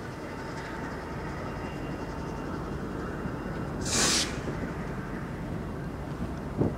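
Steady outdoor rail-yard background noise, with a short, sharp hiss of air about four seconds in and a knock near the end.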